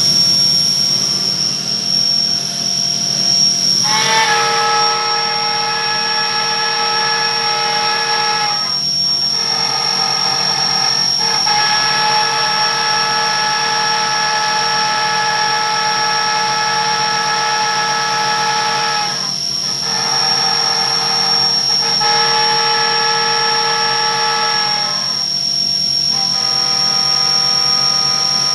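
CNC milling machine spindle (Bridgeport Torq-Cut 22) running at high speed with a steady high-pitched whine. From about four seconds in, a ball end mill is cutting the nut on a finishing pass, adding a lower singing tone that drops out briefly several times as the cutter comes off the work. A hiss of coolant spray runs under it.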